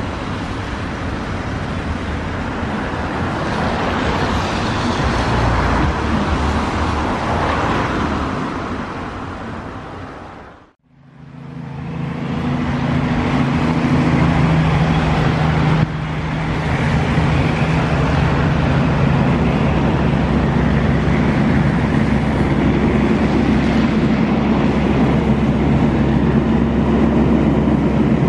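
Boeing 787 jet engines roaring as the airliner climbs away, fading out about ten seconds in. Then a taxiing Boeing 787's engines running at low thrust: a steady low hum under a loud jet roar.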